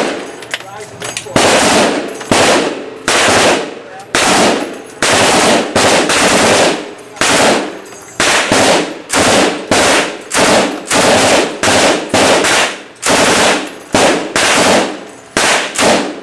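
M249 SAW light machine gun, firing 5.56 mm, loosed off in short bursts of automatic fire about once a second, each burst followed by a brief echoing decay.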